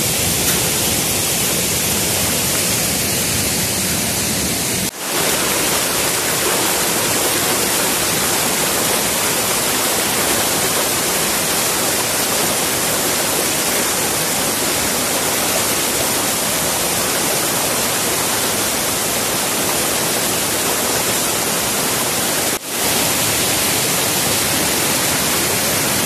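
Steady rush of a 5-metre waterfall and its stream pouring over rock, breaking off for an instant twice.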